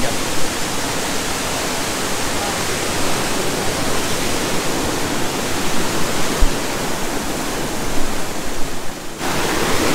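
Steady rush of falling water from a waterfall. It briefly drops away about nine seconds in.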